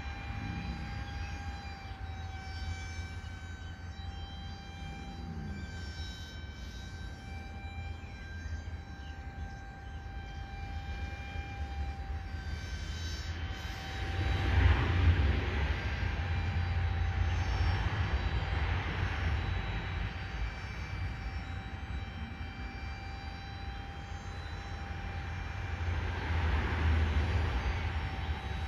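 RC paramotor's motor and propeller giving a steady whine with a string of overtones, its pitch wavering slightly. Wind buffets the microphone throughout, swelling in gusts about halfway through and near the end.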